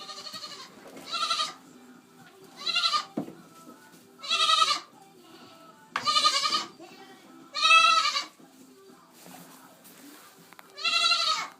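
Goat bleating repeatedly, about seven loud quavering bleats each under a second long, spaced a second or two apart.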